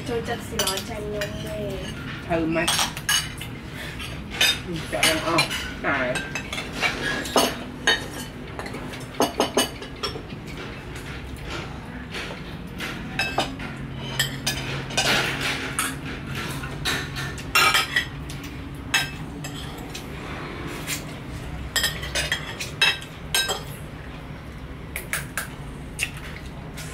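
Metal spoons and forks clinking and scraping against ceramic bowls and plates while eating, in many short, irregular clicks.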